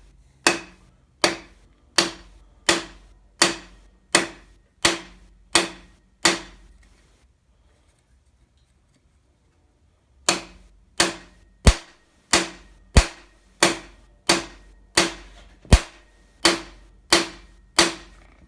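Hammer blows driving a cam bearing into an Allis Chalmers engine block with a bearing driver. The blows are sharp strikes with a short ring, about three every two seconds: a run of about nine, a pause of a few seconds, then about a dozen more.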